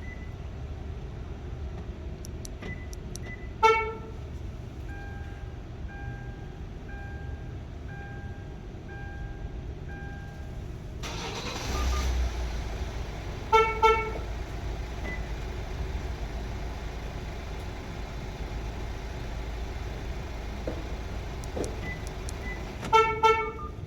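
2014 Hyundai Tucson ix being started by a remote-start alarm. A single short horn chirp is followed by a run of evenly spaced beeps, a bit more than one a second. Then the starter cranks briefly, the engine catches and idles steadily, and double horn chirps sound shortly after it starts and again near the end.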